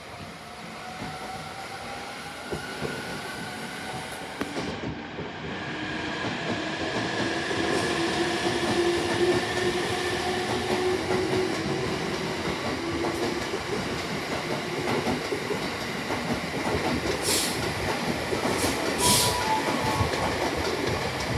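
Electric commuter train running slowly alongside the platform, with a motor whine that falls gently in pitch as it slows and a steady rumble of wheels on rail that grows louder over the first few seconds. Two short hisses of air come near the end.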